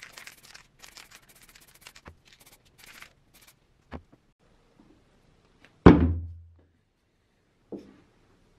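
Scratchy rustling and scraping, then a loud, heavy thunk about six seconds in and a lighter knock near the end as cast-iron press parts are set down on a wooden workbench.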